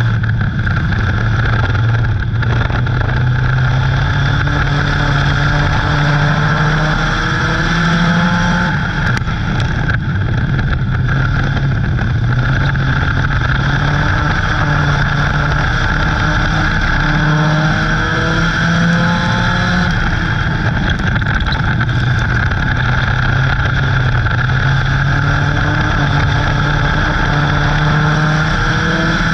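Dirt-track race car engine heard from inside the car under race throttle, its revs climbing steadily down each straight and falling back going into the turns, three times in a row at lap pace.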